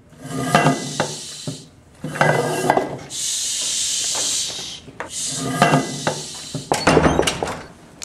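Clattering and clinking of small hard objects in several separate bursts, the busiest near the end, with a steady hiss lasting about a second and a half in the middle.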